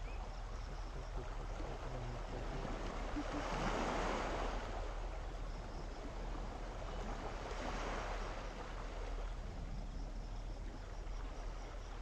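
Small sea waves washing onto the shore: two swells of surf noise that rise and fall about four seconds apart, on a calm sea.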